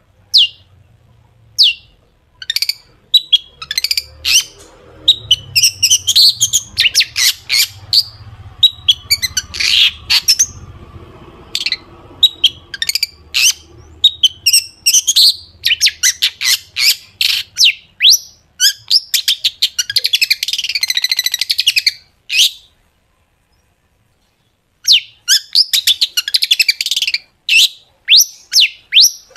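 Long-tailed shrike singing in fast runs of sharp, high notes that sweep downward, packed into rapid chattering bursts, with a pause of about two seconds near the end.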